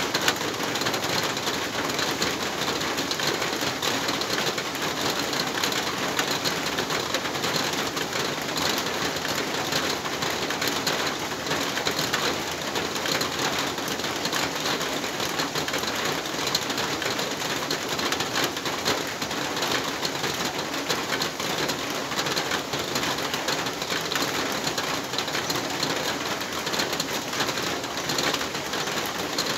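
Heavy rain falling steadily on a large metal roof, heard from underneath it, an even downpour that does not let up.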